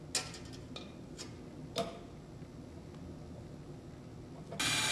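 A few light metallic clicks and taps as brass pipe fittings and a wrench are handled while a pipe tee is tightened, the sharpest just before two seconds in. Near the end a much louder steady mechanical noise starts abruptly.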